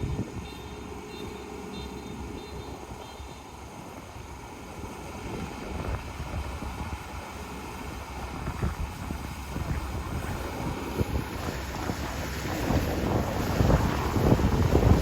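Kubota ER470 combine harvester running as it works the rice paddy, a steady low hum. Wind buffets the microphone in irregular gusts that grow louder in the last few seconds.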